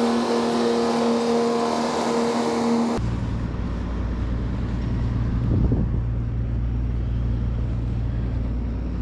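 Fishing boat engines running: a steady, high-pitched engine drone that cuts off suddenly about three seconds in, followed by a lower, steady engine rumble.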